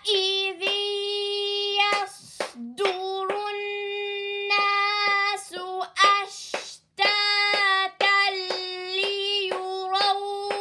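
A high voice recites Arabic letters from an Iqra reader in long, level, chanted syllables with a couple of short breaths. Quick taps of a pointer stick on the page sound between the held notes.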